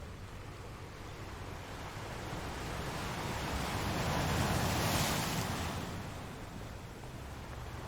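Ocean waves on the shore: one wave builds, breaks and washes up, loudest a little past halfway, then falls back to the steady hiss and low rumble of the surf.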